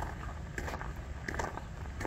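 Footsteps crunching on icy snow at an even walking pace, about three steps, over a steady low rumble.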